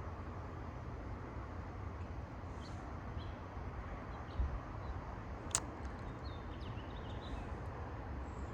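Wind blowing across the microphone: a steady low rumble and rustle with no strong gust. A few faint bird chirps come through, and there is a single sharp click a little past halfway.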